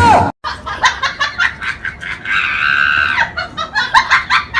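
A high-pitched voice laughing in quick short bursts, with one drawn-out shriek about halfway through.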